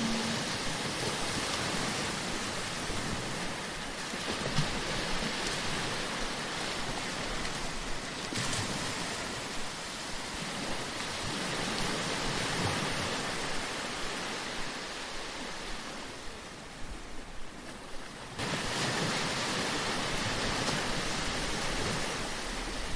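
Sea waves washing on a shore, a steady surf hiss that swells and eases, with a lull about three-quarters through before the surf surges back suddenly.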